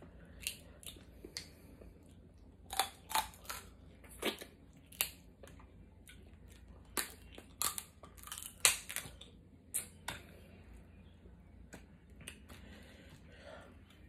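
Snow crab leg shells cracking and snapping by hand, about a dozen sharp cracks scattered through, with close-up chewing of the crab meat between them.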